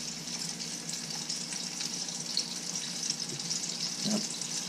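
Steady sizzle of battered chicken pieces deep-frying in hot oil, with fine crackles. A short low sound comes about four seconds in.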